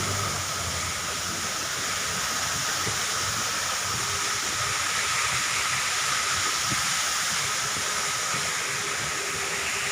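Steady rushing of falling water, with a thin steady high tone running through it.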